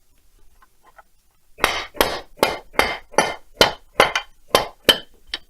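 Hammer blows, about ten sharp strikes at roughly two and a half a second, starting about a second and a half in, knocking apart the Stihl 070 chainsaw's crankcase halves, which are held together by dowels.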